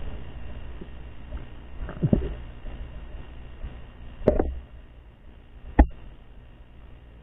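Muffled underwater sound around a submerged camera: a low rumble of moving water that fades, with three dull knocks, the last one the loudest.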